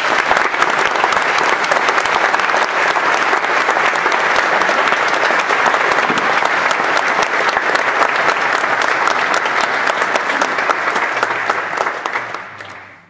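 Audience applauding: dense, steady clapping from a large crowd that fades out near the end.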